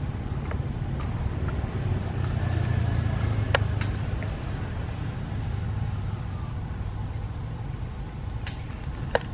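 Steady low outdoor rumble, a little louder a few seconds in, with a few short sharp clicks.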